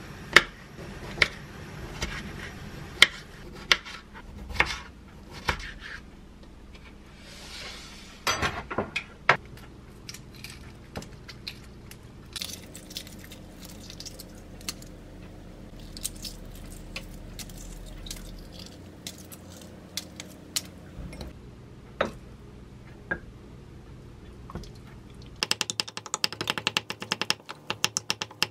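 A kitchen knife cutting cherry tomatoes in half, knocking sharply on a wooden cutting board. Then eggshell crackles as boiled eggs are peeled. Near the end, a wooden spoon mashes boiled eggs in a glass bowl with rapid tapping.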